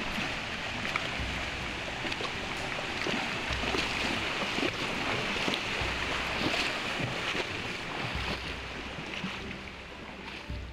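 Rushing water of a shallow, rocky stream, with horses wading through it: splashes and sharp knocks of hooves on stones. It fades near the end.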